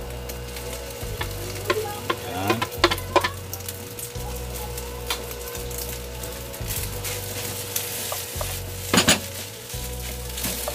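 Cooked rice sizzling in a hot non-stick frying pan with scrambled egg as it is tipped in and stirred with a wooden spatula. Sharp scrapes and knocks of the spatula against the pan, a cluster a couple of seconds in and again near the end.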